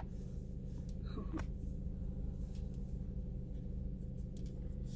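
Steady low hum of a car's running engine, heard inside the cabin, with a few faint rustles and small clicks as a cloth face mask is pulled on.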